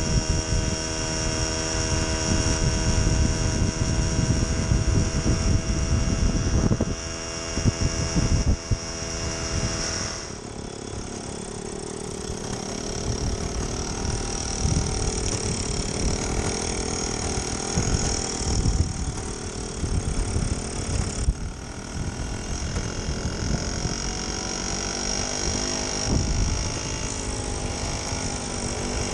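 1969 Solex 3800 moped's 49.9 cc two-stroke engine running under way, with wind rumbling on the microphone. For the first ten seconds it holds a steady note; after that it runs lower and wavers up and down on a rough dirt track.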